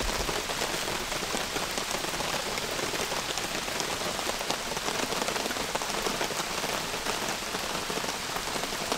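Tomahawk steak sizzling on a hot campfire grill grate with the wood fire crackling beneath: a steady hiss peppered with many small pops and crackles.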